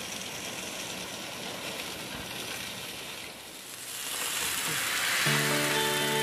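Steady background noise, then from about four seconds in a whole fish frying in oil in a grill pan on a portable gas stove: a loud sizzling hiss. Background music with steady notes comes in about a second later.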